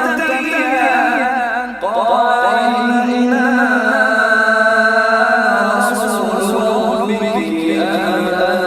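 A male voice chanting Quran recitation (tajweed) in long, melodic, drawn-out phrases with a wavering ornamented pitch. There is a short breath-break about two seconds in, then a long held line.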